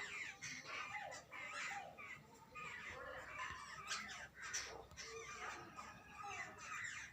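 A group of jungle babblers calling together, a continuous stream of harsh, overlapping chattering calls.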